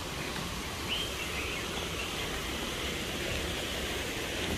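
Steady, even outdoor hiss of background noise, with a brief faint chirp about a second in.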